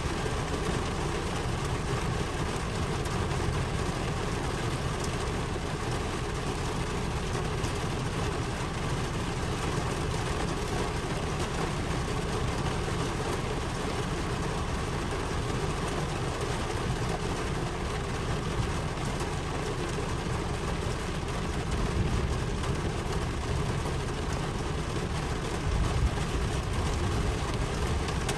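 Steady rain: an even hiss with a strong low rumble underneath.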